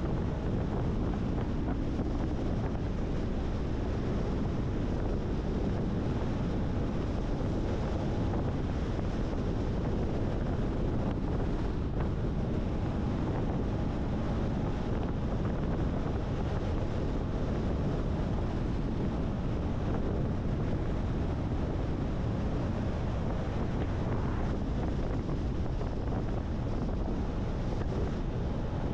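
Steady road and wind noise of a car driving at speed: a constant low rumble with no change in loudness.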